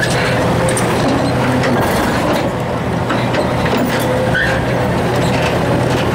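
Excavator's diesel engine running steadily while it powers a hydraulic crusher attachment, with scattered sharp cracks and crunches as the crusher's steel jaws break reinforced concrete.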